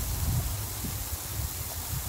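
Wind rumbling unevenly on the microphone, over a steady hiss.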